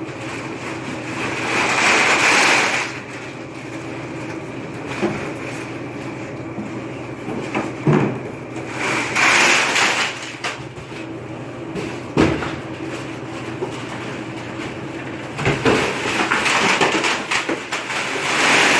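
Vending machine humming steadily, with several sharp knocks and clunks, and three longer stretches of hissing noise between them.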